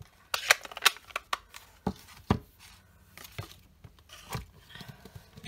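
Paper-crafting tools and card stock handled on a wooden tabletop: a scatter of light clicks and taps with faint paper rustling between them.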